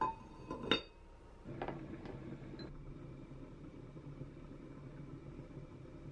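A heavy enamelled cast-iron Staub cocotte lid set onto its pot: a light click, then one sharp ringing clink as the lid seats on the rim. A few softer knocks follow, then a steady low hum.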